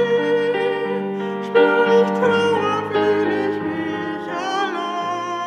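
A woman sings a slow blessing song, holding notes with vibrato, accompanied by a Yamaha digital piano.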